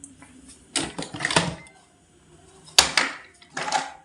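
Plastic clicking and rattling from a toy and its packaging being handled during unboxing, in several short bursts, the loudest about three seconds in.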